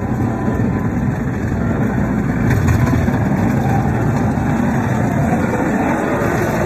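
Fiat Fullback pickup's engine running as the truck creeps forward with a Snoway plow blade pushing snow: a steady low rumble with a rushing noise, swelling slightly about two and a half seconds in.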